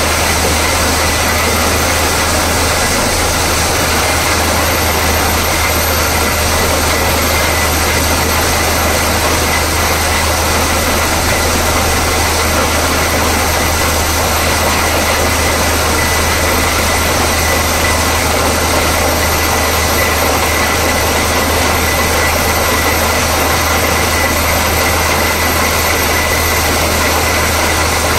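Borewell drilling rig running steadily: a loud, unchanging engine and compressor drone with a strong low hum and a thin high whine.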